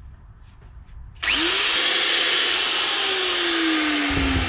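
Electric grinder starting abruptly about a second in and running loudly on steel, grinding the top layer off a welded shim on a car's suspension mount, with a whining tone that slowly falls in pitch.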